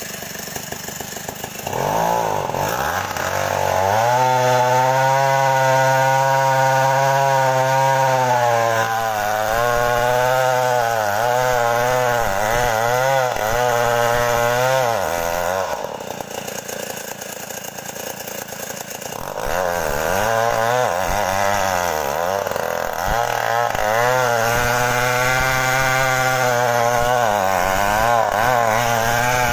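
Stihl 070 two-stroke chainsaw revving up and cutting wood, its engine note wavering under load. It drops back to a lower speed for a few seconds just past the middle, then revs up and cuts again.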